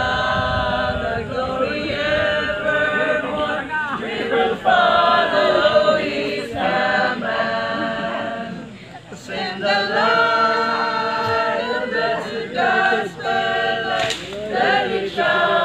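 A small group of men and women singing together without accompaniment, in phrases of held notes with a short breath between phrases about nine seconds in.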